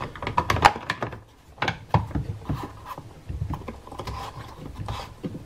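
The plastic side cover of a Dedra DED8701 electric chainsaw being pressed on and its red knob turned onto the threaded stud: a run of irregular plastic clicks and knocks with scraping rubs between them.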